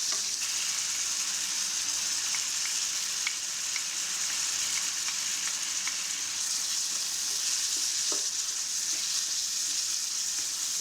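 Minced pork stir-frying in hot oil in a wok: a steady sizzle with a few faint ticks of stirring.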